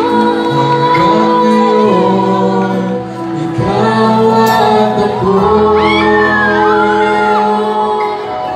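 Two singers, a man and a woman, singing a duet through microphones over backing music, holding long notes with sliding vocal runs.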